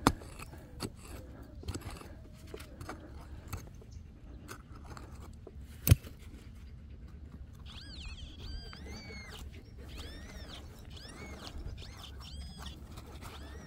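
Digging out a metal-detector target: scraping and knocking of a digging tool in the soil, with a single sharp strike about six seconds in. From about eight seconds, an animal gives a run of short, high calls that rise and fall in pitch.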